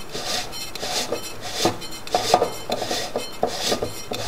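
Threads of a telescope's primary baffle tube scraping and grinding as the tube is unscrewed by hand, in a run of short rasping strokes about two a second, one for each twist of the hand.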